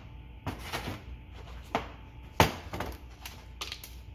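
A series of sharp knocks and clicks from small metal parts and a perforated parts-cleaning basket being handled and set down on a sheet-metal workbench, the loudest knock about two and a half seconds in.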